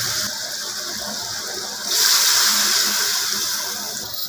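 Sliced onions sizzling in hot oil in a cooking pot. About two seconds in it changes to a louder, steady watery hiss from a pot of water.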